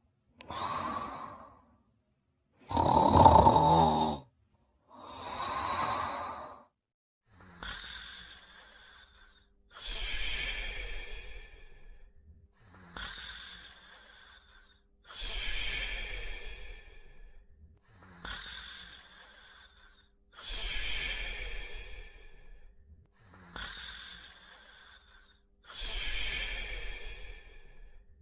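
A cartoon character snoring: a run of sleeping breaths, each one to two seconds long. A loud, rough snore comes about three seconds in, and after that the breaths settle into an even rhythm of in-breath and out-breath.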